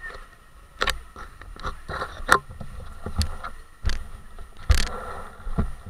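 Irregular knocks, clicks and clatter, several with low thumps, over a faint steady high whine: handling and rattle noise on a motorbike-mounted camera while the bikes stand at rest.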